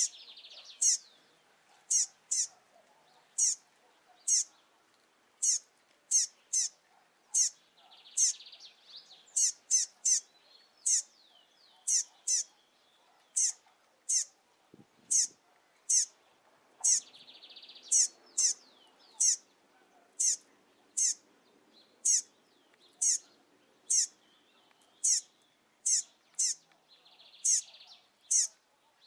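A recently fledged double-collared seedeater (coleiro) calling over and over: sharp, high, down-slurred call notes, one to two a second, some in quick pairs. A fainter buzzy sound, about a second long, comes four times in the background.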